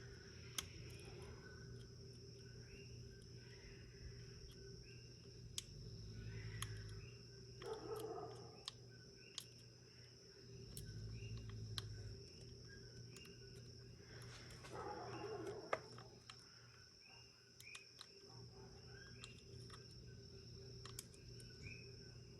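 Faint, scattered ticks and clicks of a lock pick working the pin stack of a Master Lock 410 lockout padlock during single-pin picking, over a faint steady background hum.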